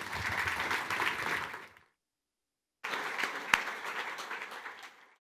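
Audience applauding. The applause cuts off suddenly about two seconds in, and after a second of silence it comes back, with one sharp click partway through, then fades out near the end.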